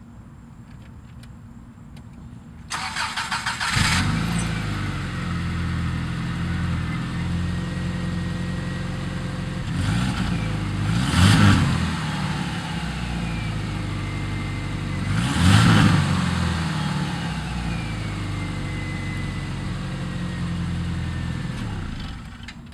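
Subaru flat-four in a 1997 Outback, fitted with unequal-length headers and the stock exhaust, cranking for about a second and catching about four seconds in. It settles to an idle with three short revs and cuts off near the end. The header joints do not leak.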